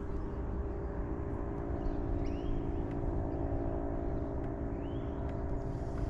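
Steady hum of the fishing kayak's drive as it moves the kayak, with wind rumbling on the microphone.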